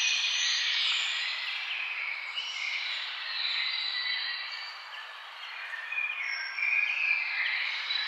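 Birdsong: several birds chirping and singing over one another above a steady hiss, thinning out briefly about five seconds in, then busier again.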